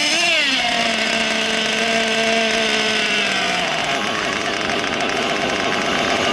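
A small nitro glow engine in a Mugen Seiki 1/8 off-road buggy runs on the bench while its carburettor mixture and idle are set with a screwdriver. Its revs rise and fall once just after the start, then it idles steadily and runs rougher after about three and a half seconds.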